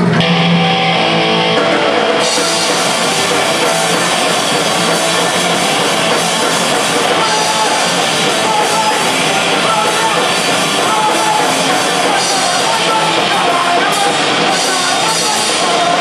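Live rock band playing loud electric guitars and a drum kit. The top end fills in with cymbals about two seconds in as the full band kicks in.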